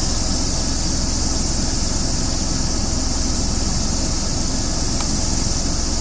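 Steady high-pitched chorus of insects, with a low steady rumble underneath.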